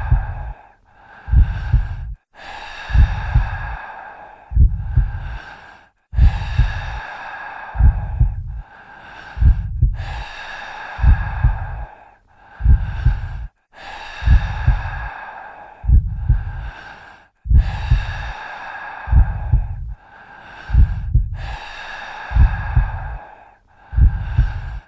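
Heartbeat sound effect: low double thumps (lub-dub) repeating about every second and a half, under slow, steady breathing, each breath an airy hiss lasting a couple of seconds.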